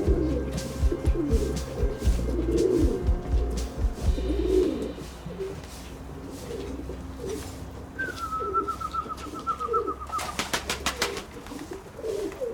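Domestic pigeons cooing over and over, with background music that fades out about a third of the way in. Later comes a wavering high whistle and a brief rattle of quick clicks.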